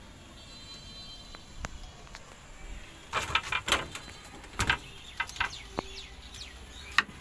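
A knife cutting peeled cucumbers against a cutting board in a steel tray: a run of sharp, irregular taps and clicks starting about three seconds in.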